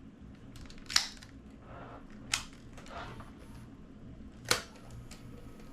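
Three sharp clicks from handling the controls of a Sony Handycam CCD-TRV41 Video8 camcorder, about a second and a half apart, over a low steady hum.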